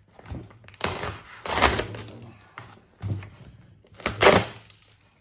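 Peel ply being pulled off a cured carbon-fibre and epoxy mudguard layup, in three noisy tearing pulls, the first the longest.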